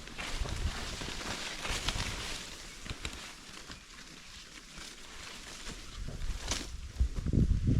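Footsteps and rustling of a hiker climbing a steep mountain trail, with scattered faint clicks. About seven seconds in, wind starts buffeting the microphone in low rumbling gusts.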